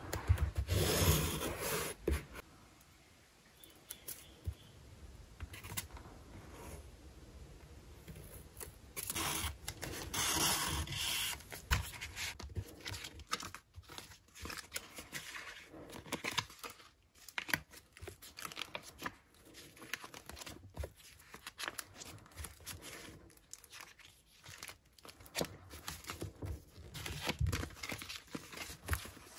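Crinkling and rustling of clear plastic sticker sheets as the pages of a spiral-bound sticker book are flipped and handled over paper, in irregular short crackles. The louder bursts come near the start and about ten seconds in.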